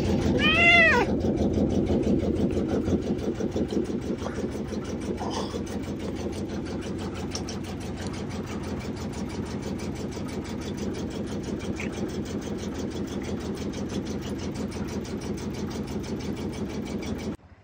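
A domestic cat meows once, briefly, then purrs steadily and continuously right up against the microphone.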